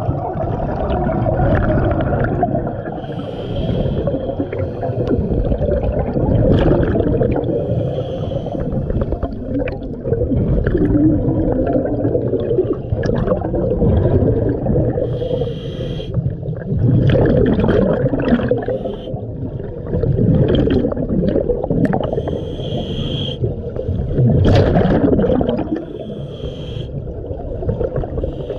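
Scuba diver breathing through a regulator underwater. Breaths and bubbling exhalations swell and fade about every three to four seconds.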